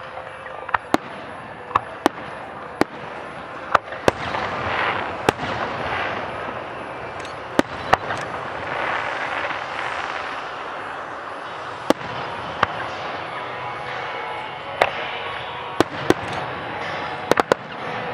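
Fireworks display: aerial shells going off as sharp bangs at irregular intervals, with a quick cluster of bangs near the end, over a steady rushing noise that swells in the middle.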